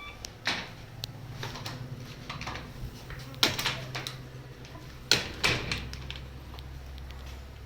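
Light clicks and knocks from wooden hive frames and beekeeping tools being handled, with a few sharper knocks a little past three seconds in and around five seconds in, over a steady low hum.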